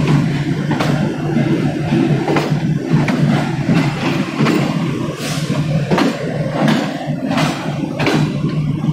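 Passenger train coach rolling slowly through the station, heard from its doorway: a steady low rumble with irregular clicks and clacks as the wheels cross rail joints and points.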